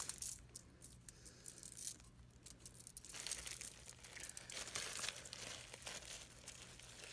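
Faint, irregular crinkling and rustling of a plastic zip-top bag and the aluminium foil beneath it as sugar, spice and pecan filling is sprinkled by hand from the bag onto crescent-roll dough.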